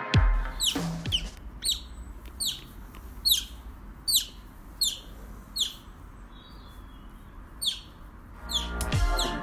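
An otter calling with a string of short, high-pitched chirps, each falling in pitch, about one a second with a brief pause partway through. Music fades out just after the start and returns near the end.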